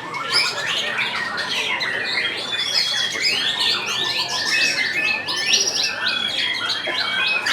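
Many caged murai batu (white-rumped shamas) singing at once in competition, a dense chorus of overlapping whistles, trills and chirps with no pause.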